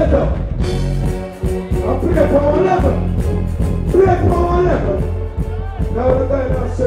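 A male reggae deejay chanting into a microphone over a riddim with a heavy, steady bass line, played live through a stage sound system.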